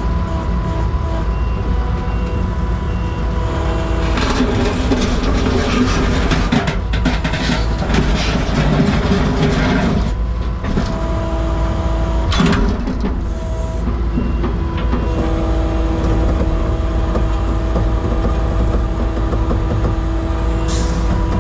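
Skid steer engine running steadily, with a louder, rougher stretch in the middle and a couple of sharp clicks.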